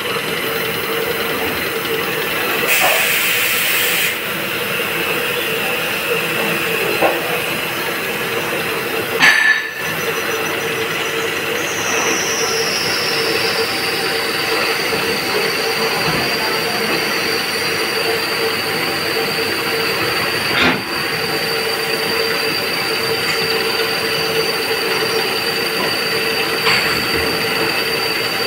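CNC vertical machining centre drilling into a copper workpiece with a twist drill: the spindle and cut make a steady hum and hiss. About twelve seconds in, a high squeal from the cut starts, glides down slightly and then holds.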